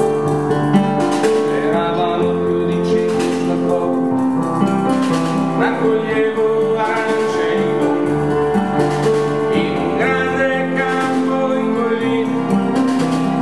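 Live band music: a man singing over strummed acoustic guitar and keyboard chords.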